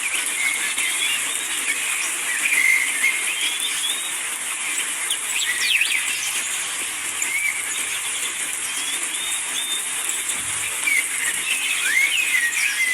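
Birds chirping in short, scattered calls and quick whistled glides over a steady hiss of rain.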